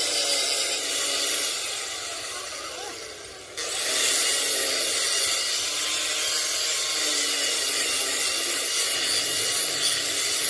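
Steady hissing metalworking noise that sags over a couple of seconds and then jumps back to full level about three and a half seconds in.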